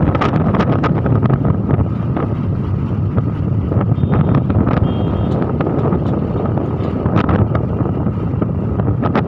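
Loud wind buffeting on the microphone of a moving vehicle, over steady engine and road noise, with scattered short crackles.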